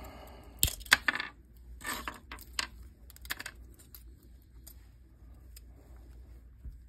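Hard resin dice being popped out of a flexible mold and dropping onto a tabletop: a run of sharp clicks and clacks, busiest in the first three and a half seconds, then only a few faint ticks.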